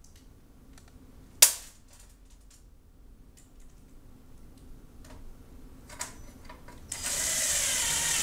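Light clicks and taps of metal parts being handled, with one sharp click about a second and a half in. About seven seconds in, a cordless drill starts running, driving a self-tapping screw into the sheet-metal fixture housing to fasten a lamp bracket.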